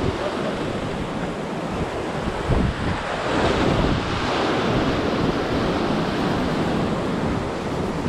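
Ocean waves breaking and washing over jetty rocks, with wind buffeting the microphone. The surf swells louder about two and a half seconds in.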